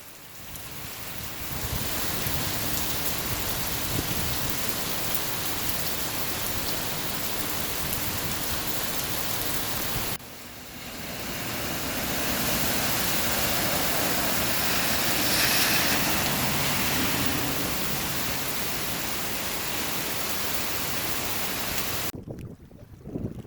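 Heavy typhoon rain pouring down steadily as a dense hiss. The sound dips briefly about ten seconds in and falls away near the end.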